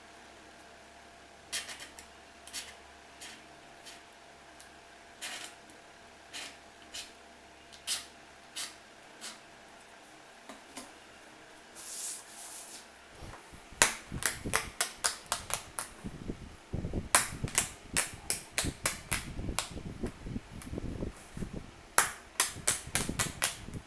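Sharp clicks and snaps from a thin marble-pattern sheet being worked with a cutter knife. Single clicks come about a second apart, then there is a brief rustle as the sheet flexes. Through the last ten seconds a fast, irregular run of cracks and clicks follows.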